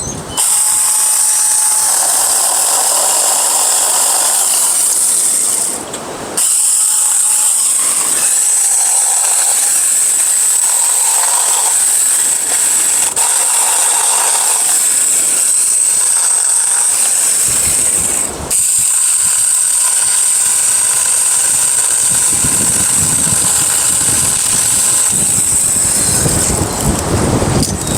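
Saker cordless mini chainsaw running with a steady high whine as it cuts tree suckers, stopping briefly twice, about six and eighteen seconds in.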